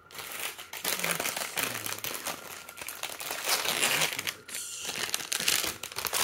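Paper and plastic packaging of a Hot Wheels mystery pack crinkling and rustling as it is handled and opened by hand, with a short pause a little past the middle.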